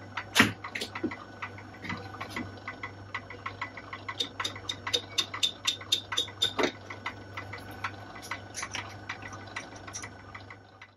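Metal lathe running with a steady motor hum while the tool faces a rough cylinder casting turning in a four-jaw chuck. A rapid, uneven ticking comes from the tool cutting across the casting's faceted surface, and there is one sharp click about half a second in.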